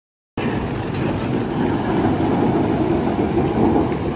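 Muddy floodwater rushing through a street: a steady, dense rushing sound that starts suddenly about a third of a second in, after silence.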